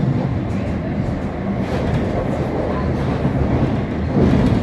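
London Underground Jubilee line 1996 stock train running, heard from inside the carriage: a steady low rumble of wheels on rail and traction noise.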